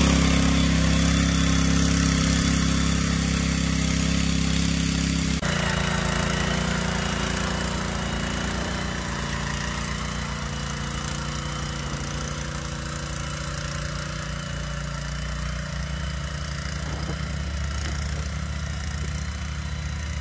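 Small petrol engine of a walk-behind rotary tiller running steadily under load as its tines churn the soil. About five seconds in the sound suddenly drops and carries on more distant as the tiller works away.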